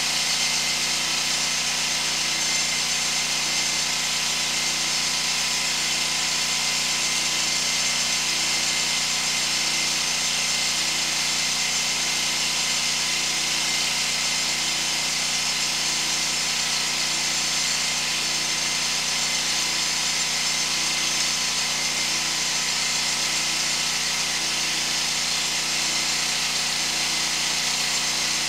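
Sewer hydro-jetter running steadily, jetting high-pressure water to cut roots out of a sewer main. It makes a constant loud hiss over a machine drone, with a slow, even pulse.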